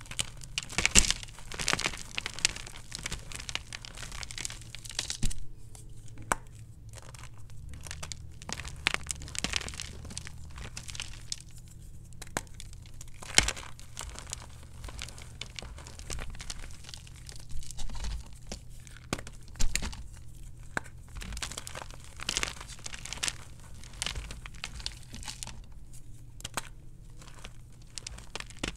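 Gym chalk squeezed and crumbled by hand: dense, irregular crunching and crackling as the blocks and powder break between the fingers, with a few louder, sharper crunches.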